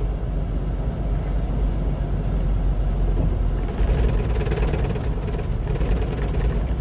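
Steady drone of a semi-truck's diesel engine and road noise, heard inside the cab while driving.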